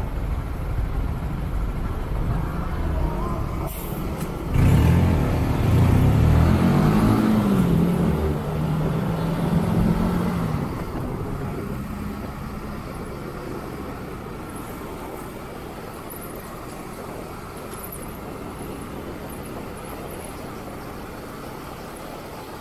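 Motorcycle engines running at a standstill, then about four and a half seconds in a loud engine revs up as the motorcycles pull away, its pitch climbing, dipping and climbing again. After that it settles into a steadier riding noise that slowly fades.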